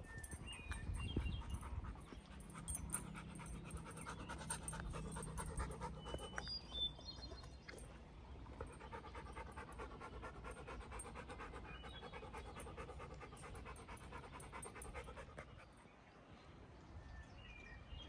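A dog panting in a steady rhythm, softer in the second half.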